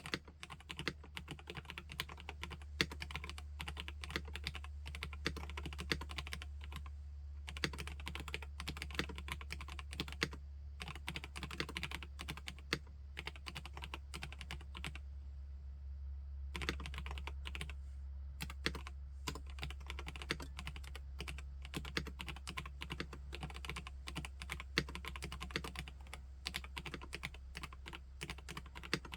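Mechanical keyboard being typed on steadily: a PK x BIOI Command 65 custom 65% board with SP-Star Dolch-style keycaps, making dense, irregular key clacks with a few brief pauses.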